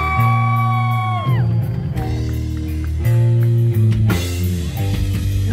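Rock band playing live: electric guitars, bass guitar and drum kit. A long held high note fades out about a second and a half in, and a crash comes about four seconds in.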